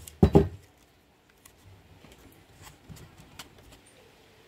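Wooden hive box being handled and set down: a loud wooden knock or two at the start, then light scattered taps and clicks.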